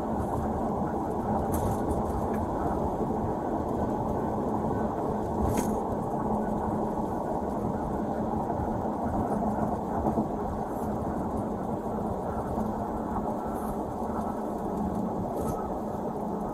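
Road and engine noise inside a moving patrol car's cabin: a steady low rumble with a faint hum, and a few faint clicks.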